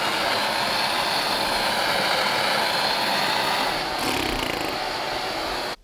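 Blowtorch flame running with a steady rushing noise while it heats a steel sword blade for tempering. It stops suddenly just before the end.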